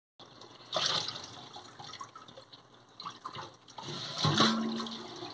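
Tap water running onto a whole raw chicken as it is rinsed by hand in a stainless steel sink, splashing into a bowl of wash water. It cuts in just after the start, with louder splashes about a second in and around four seconds.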